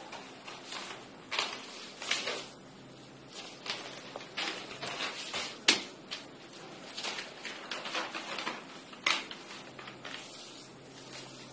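Newspaper rustling and crackling as a sheet is folded and creased by hand, in irregular bursts, with the sharpest crackles about halfway through and again near the end.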